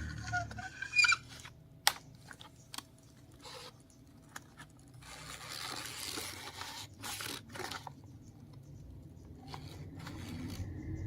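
A low engine drone under crunching, scraping and sharp clicks, with a rushing hiss for a few seconds in the middle and brief squeaks near the start.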